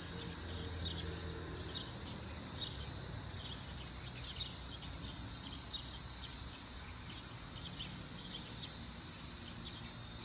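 Outdoor ambience: scattered short, high chirps come and go over a steady low hum and hiss.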